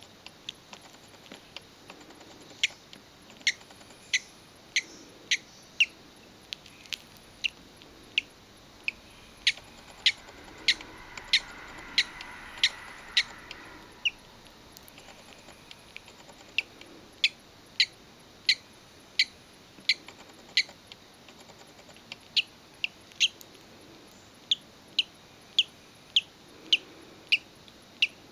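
Budgerigar chick peeping while hatching from its egg: short, high peeps repeated one or two a second, with a pause of a couple of seconds past the middle.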